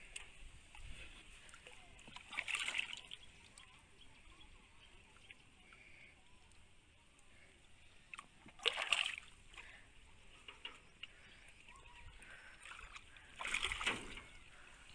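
Water splashing in three short bursts, a few seconds apart, over a faint background.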